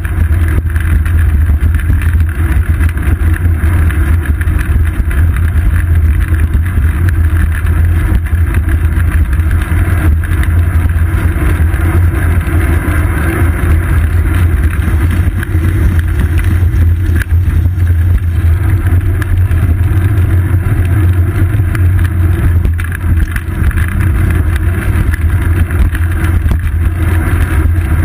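Loud, steady low rumble of a bicycle riding on asphalt, heard through a seat-post-mounted GoPro Hero 2: road vibration through the mount and wind on the camera's microphone.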